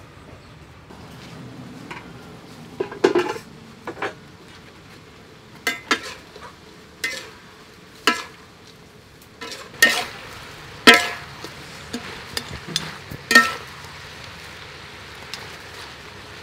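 Metal ladle scraping and knocking against a metal wok as a chicken and cauliflower stir fry is stirred, over a low frying sizzle. The strikes come irregularly, about a dozen, each with a short ring, starting about three seconds in and loudest near the end.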